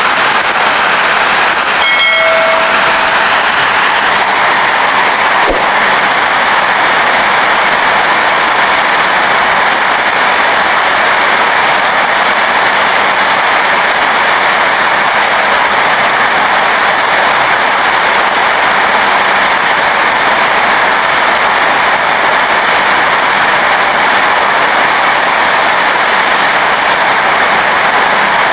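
Heavy rain falling steadily as a loud, even hiss. A short pitched tone sounds briefly about two seconds in.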